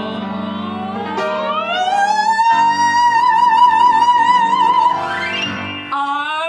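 Operatic soprano sliding up to a high note and holding it with a wide vibrato over sustained piano chords. The high note ends about five seconds in, and lower sung notes follow near the end.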